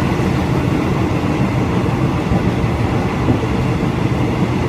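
Train running along the track, heard from on board: a steady rumble of wheels and carriage.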